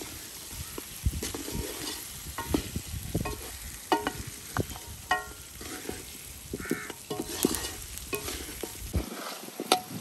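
Goat trotters and spice masala sizzling in ghee in a kadhai while being stirred, with repeated scrapes and knocks of the stirring spoon against the pan. This is the bhuna stage, where the trotters are roasted with salt, turmeric and red chilli.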